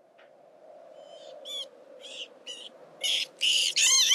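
Rat squeaking: a series of short, high-pitched squeaks that come louder and closer together toward the end, over a faint steady low drone.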